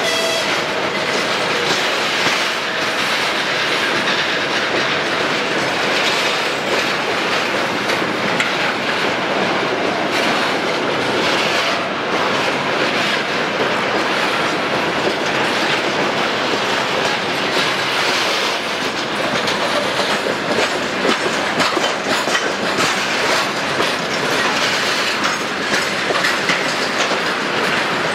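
Railway tank wagons rolling past at close range: a steady rumble and rattle of wheels on rail, with frequent clacks as the wheels cross rail joints.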